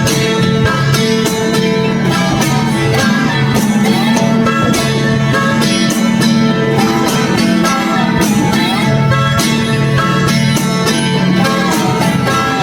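Upbeat bluegrass-style background music with picked guitar and banjo at a steady level.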